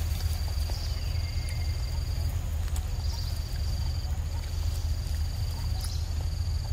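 An insect trilling in long, steady, high buzzes of one to two seconds each with short breaks between them, over a low steady rumble, with a couple of sharp clicks.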